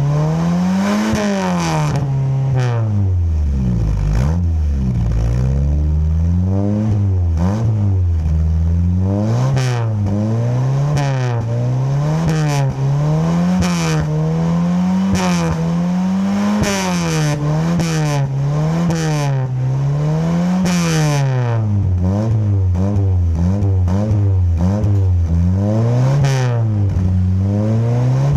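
Engine with an aftermarket racing exhaust being revved repeatedly, its pitch rising and falling about once every second or two, with a deeper, slower dip a few seconds in.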